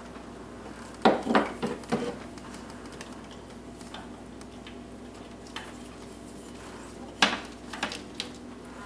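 Distributor being worked down into its bore on the V8 engine by hand, its metal housing clinking and knocking against the engine: a cluster of clinks about a second in and a few more near the end, over a faint steady hum.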